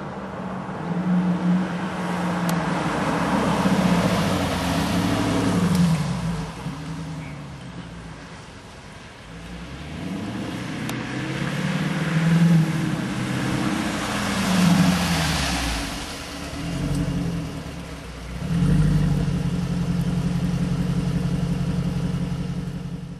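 Dodge Challenger R/T's 5.7 L Hemi V8 heard through a Zoomers aftermarket exhaust, revving up and dropping back several times, then holding a steady drone for the last few seconds.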